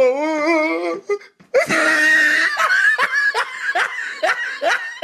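A person laughing hard: a long, wavering laugh at first, then after a short break a run of short, rhythmic ha-ha bursts, about two or three a second.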